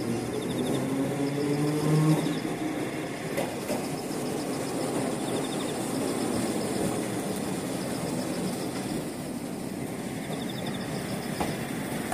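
Tram of the Manyosen streetcar line approaching along the track and drawing alongside, a steady rumble of its wheels and motors. A humming tone is heard in the first two seconds, loudest about two seconds in.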